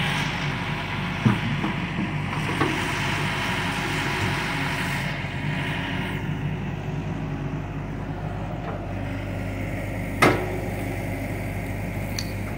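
John Deere 60G compact excavator's diesel engine running steadily as it digs, with a hiss that is stronger in the first half. A few sharp knocks sound over it, the loudest about ten seconds in.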